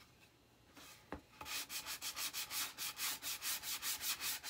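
Sanding block rubbed back and forth over the edge of a chalk-painted wooden egg cutout, distressing the paint. Rapid, even strokes, about three or four a second, start about a second and a half in, after a single click.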